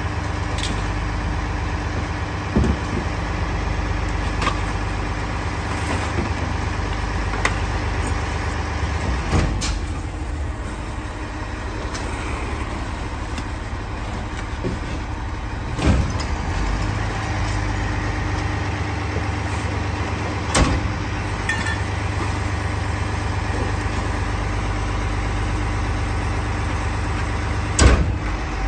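Rear-loader garbage truck's diesel engine idling steadily, with a handful of short sharp thumps spread through as trash bags are thrown into the hopper.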